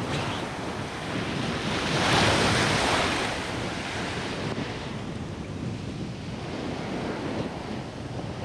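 Choppy sea surf washing and breaking around a wader's legs, with wind buffeting the microphone. A wave swells to its loudest about two seconds in, then falls back to a steady wash.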